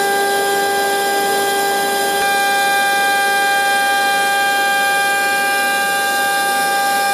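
CNC 6040 router running, its spindle and end mill cutting EVA foam: a steady, high whine of several tones over a hiss, the pitch pattern changing slightly about two seconds in.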